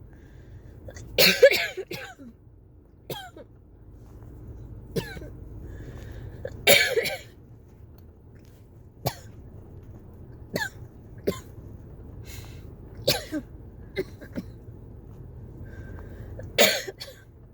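A person coughing in repeated fits during a cough-variant asthma attack: three hard coughing bouts, about a second in, about seven seconds in and near the end, with smaller single coughs between them.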